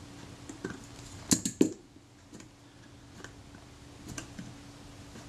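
Sharp metallic clicks of pliers gripping and shifting on a Kodak Retina Reflex IV's seized meter-setting button, which still won't turn. A cluster of three louder clicks comes about a second and a half in, with scattered lighter ticks before and after, over a faint steady hum.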